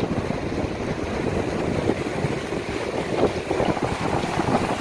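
Wind buffeting the microphone in uneven gusts, over the rush of ocean surf breaking on the shore.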